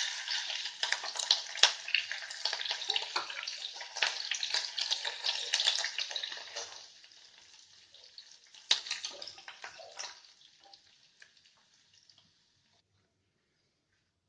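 Chopped green chilies frying in hot oil: a steady sizzle full of small crackles and pops. The sizzle weakens after about seven seconds and dies away to almost nothing near the end.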